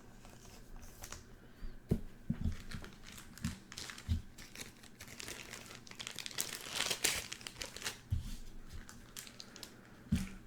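Trading cards and their plastic being handled on a table: crinkling and rustling, loudest about two-thirds of the way through, with a few soft knocks as cards are set down.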